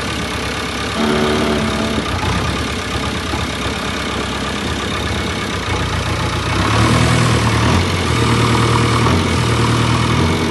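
2011 JCB 3DX backhoe loader's Kirloskar diesel engine idling, with a brief higher tone about a second in. From about two-thirds of the way in, the engine is revved up louder three times, each surge about a second long.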